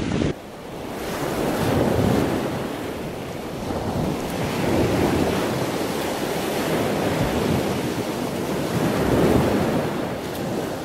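Small surf washing onto a sandy shore, swelling and easing every few seconds, with wind buffeting the microphone.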